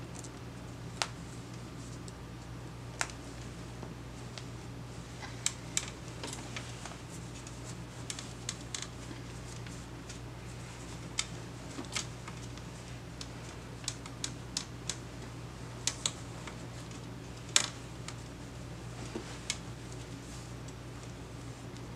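Scattered sharp clicks and light knocks at uneven intervals, the loudest a little past the middle, over a steady low hum.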